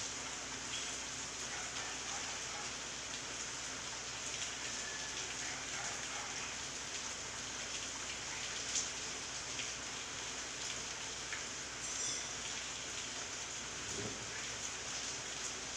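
Steady typhoon rain falling on shrub leaves and nearby surfaces, with a few louder single drops.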